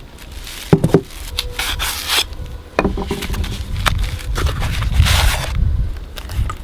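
Furnace kit parts being handled and set down: a few sharp knocks and clunks, with stretches of scraping and rubbing, over a steady low rumble.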